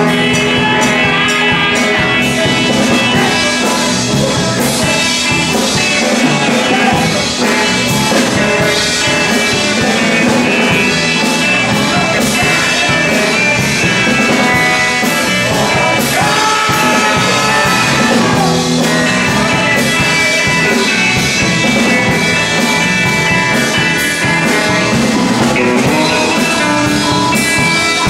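Live rock band playing amplified: electric guitar, bass guitar and drum kit, with singing.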